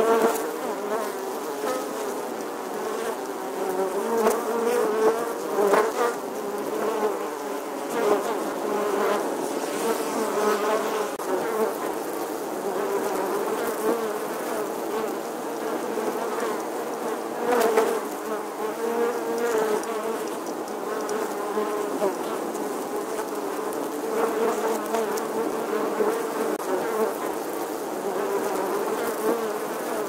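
Honeybee colony buzzing at its nest entrance in a stone wall: many wingbeats blend into a steady, wavering drone, swelling briefly several times as single bees fly close.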